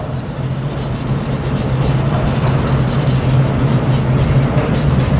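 Chalk scraping on a blackboard in rapid back-and-forth strokes as a region of a diagram is shaded in, over a steady low hum.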